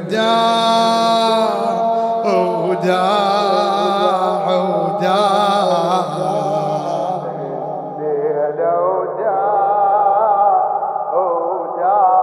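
Male voices singing a slow, wavering latmiya (Shia Muharram lament) melody in long held notes over a steady low drone, without clearly sung lyrics.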